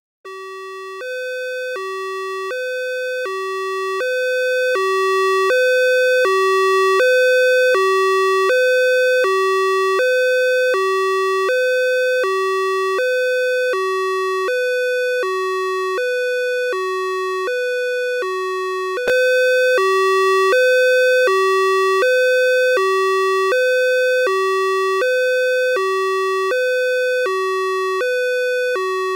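Ambulance siren sounding a two-tone hi-lo pattern, switching steadily between a low and a higher note, about one low-high cycle a second. It grows louder over the first few seconds, and a little past two-thirds of the way through there is a click and a sudden step up in loudness.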